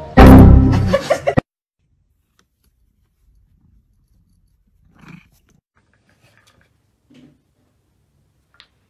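A loud animal cry, about a second long, that cuts off abruptly. Then near silence with a few faint, brief soft sounds.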